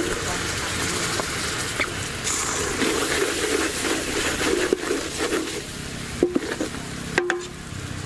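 Hot brown sauce bubbling and sizzling in an aluminium pot as fish sauce is poured in and a wooden ladle stirs it, with a few sharp knocks of the ladle against the pot in the second half.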